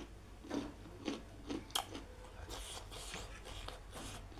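Close-miked chewing of spicy instant noodles: a series of short, wet mouth sounds, with a sharp click near the middle.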